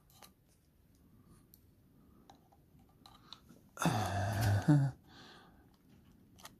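Faint clicks and taps of metal parts being handled. About four seconds in comes a loud, low, strained grunt of effort lasting about a second, followed by a breath.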